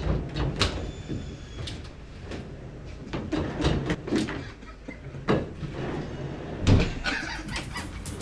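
Office chair moving around inside an empty cargo van: caster wheels rolling on the floor with a run of sharp knocks and thumps, the loudest one late on.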